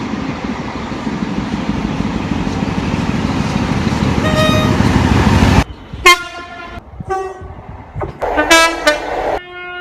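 Rumble of a passing train, growing louder, with a brief horn blast near the middle; it cuts off suddenly and is followed by two short train horn toots and then a longer, louder horn blast near the end.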